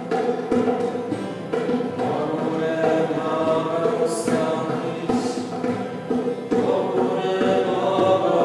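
A choir singing a slow chant with long, held notes.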